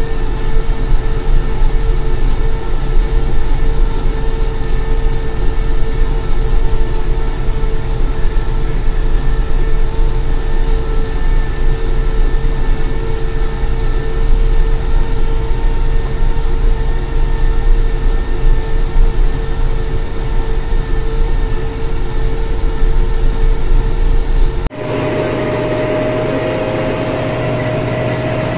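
A Başak 2110S tractor's engine runs steadily under way, heard from inside the cab, with a heavy low rumble and a steady whine. About three seconds from the end the sound cuts abruptly to a quieter, smoother engine drone with a slightly higher whine.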